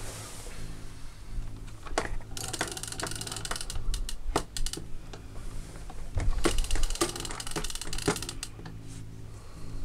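Multiplier fishing reel clicking in two fast runs of a second or so, with single clicks between them, as it works against a large skate on a heavily bent boat rod. A low steady hum sits underneath.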